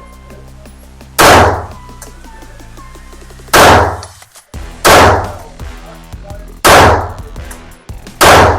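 Five pistol shots from a Springfield Prodigy 9mm, fired one at a time at an uneven pace, each a sharp loud crack with a short ring-off.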